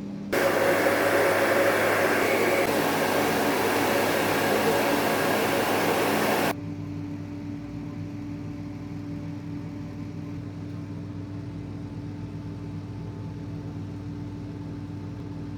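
Hair dryer switched on, blowing steadily at full power for about six seconds, then switched off abruptly. A quieter steady low hum continues underneath and after it.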